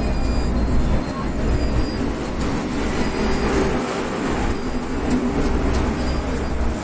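Steady rumbling of a moving vehicle, with faint high squeals now and then.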